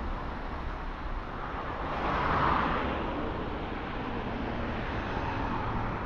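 Residential street traffic: the steady noise of cars on the road, with one vehicle passing close and swelling up about two seconds in before fading.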